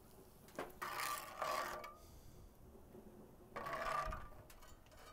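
Metal spatula scraping and stirring through a thin cream-and-beer sauce in a cast iron skillet, in two spells: one about a second in and another near four seconds.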